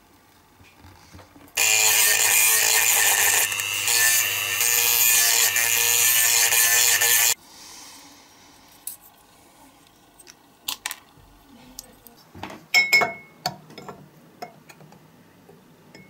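A small handheld power tool runs for about six seconds, starting and stopping abruptly, working on a diecast toy car part. Scattered clicks and taps of small metal parts being handled follow.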